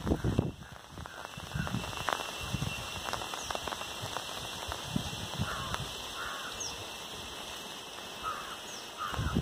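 Steady monsoon rain falling on trees and foliage, an even hiss. A bird calls in two short pairs, about halfway through and near the end, with a few thin high chirps. Low thumps come at the very start and just before the end.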